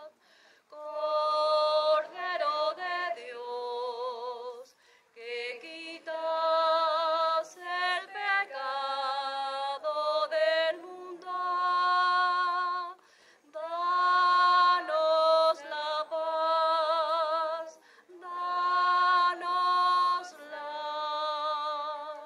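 A solo voice sings a slow Mass chant unaccompanied, holding long notes with vibrato in about five phrases with short breaths between them.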